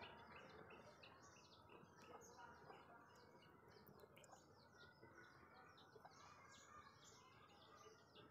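Faint birds chirping: a steady stream of short, high notes, several a second, over quiet outdoor background noise.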